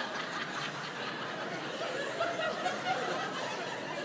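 Theatre audience laughing.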